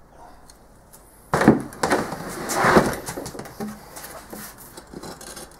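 Handling of a freshly poured sand-casting mould in a plastic tub. About a second in there is a heavy thump, then a loud scrape and crumble of foundry sand, followed by lighter knocks and rustling.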